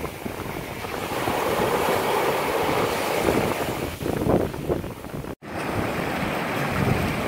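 Small surf breaking and washing up over shallow water onto a sandy beach, with wind buffeting the microphone. The sound drops out for an instant about five seconds in.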